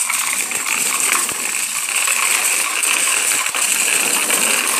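Child's bicycle with training wheels rolling over rough concrete, its metal parts giving a steady rattling jingle.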